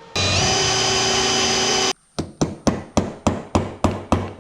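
Electric drill spinning up and running steadily for nearly two seconds, boring a small pilot hole into a stripped engine-case screw. It stops, and then a hammer taps repeatedly, about four blows a second, driving a Torx bit into the hole as an improvised screw extractor.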